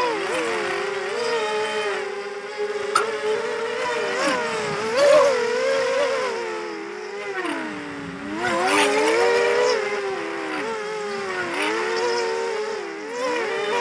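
Racing quadcopter's brushless motors and propellers whining in flight, the pitch rising and falling with the throttle and dipping briefly a little past the middle.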